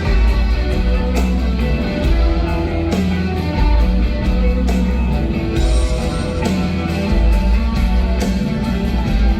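Live rock band playing an instrumental passage without vocals, led by guitar over a heavy bass line and drums.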